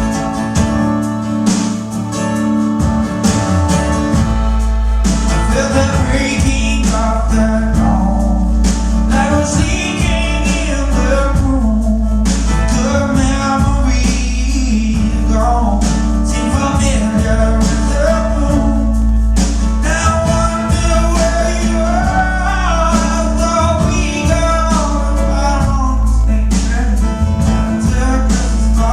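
Live music: a man singing a wavering melody over guitar, with a steady low bass underneath.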